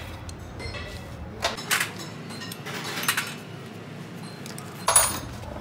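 A few sharp metallic clinks and knocks from tools or engine parts being handled, the loudest about five seconds in.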